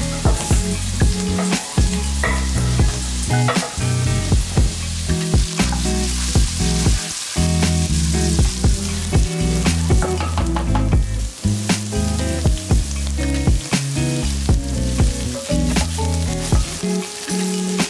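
Diced carrot, celery and onion sizzling in an enameled cast-iron Dutch oven, with a wooden spoon clicking and scraping against the pot as it stirs them. Soft background music plays underneath.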